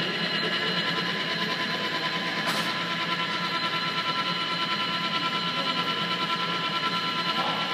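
Metal lathe running steadily while the tool takes a rough cut on a spinning round sample held in the three-jaw chuck. It gives an even, constant machine whine of several pitches over a hum, with one faint tick about two and a half seconds in.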